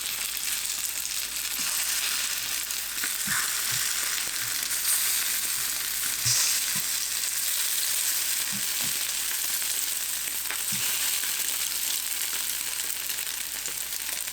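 Food sizzling steadily in a hot frying pan, with a few light knocks of a utensil against the pan.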